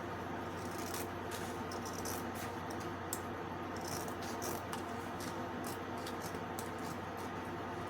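Light rubbing and scratching handling noises with scattered short clicks, over a steady low hum.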